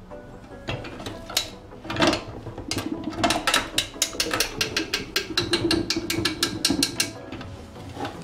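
Airhot SV-3 vertical manual sausage stuffer's hand crank being turned, its metal gearing clicking. After a few scattered clicks it settles into a fast, even run of about five clicks a second for several seconds, then stops near the end.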